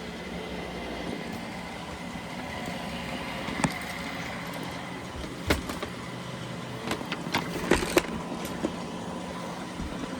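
Robot vacuum cleaners running with a steady motor hum, with a few sharp knocks about three and a half, five and a half and eight seconds in.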